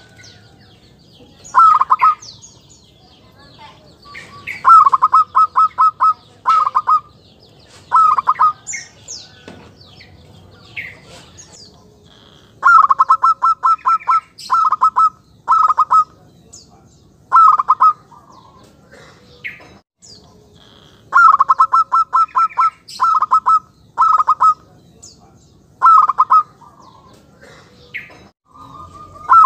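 Caged zebra dove (perkutut) cooing, giving its call as a lure (pikat) bird for drawing wild zebra doves. Each phrase is a quick run of short staccato notes, and the phrases repeat with pauses of one to three seconds between them.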